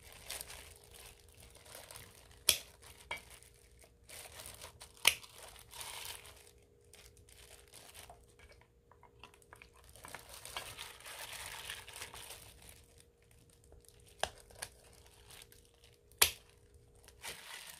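Disposable plastic glove crinkling as a hand squeezes and breaks up a soaked nuruk cake in wet cooked barley, with four sharp snips of kitchen scissors cutting the nuruk.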